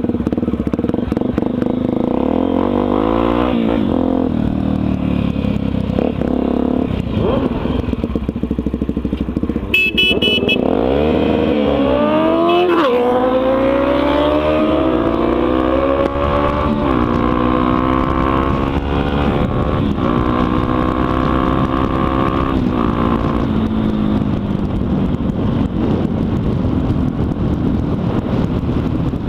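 Honda XR 250 Tornado single-cylinder four-stroke engine running loud through a de-baffled exhaust while being ridden, its pitch climbing in steps as the rider accelerates through the gears, holding steady, then dropping back near the end. A brief sharp high-pitched toot sounds about ten seconds in.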